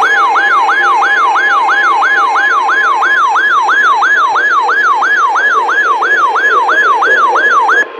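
Weather radio's electronic siren alarm going off, signalling an incoming weather warning. It is a rapid yelping siren that sweeps up and down about three times a second, with a faint steady tone underneath for the first few seconds, and it cuts off abruptly near the end.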